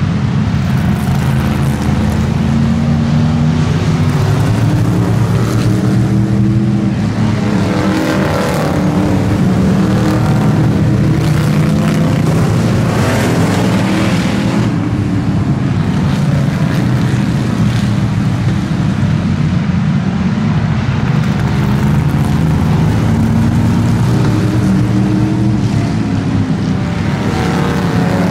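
Several vintage stock car engines running hard as the cars race around the oval. Their sound stays loud and steady, with cars passing close by about eight seconds in and again around thirteen seconds in, the pitch rising and falling as they go past.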